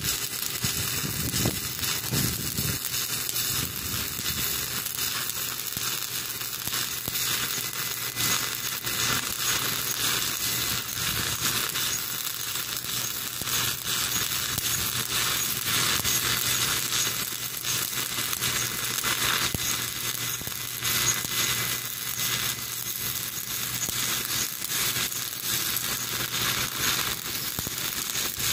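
Stick-welding arc burning steadily as the electrode is run along a joint on a loader: a continuous, even crackle, with a faint steady low hum underneath.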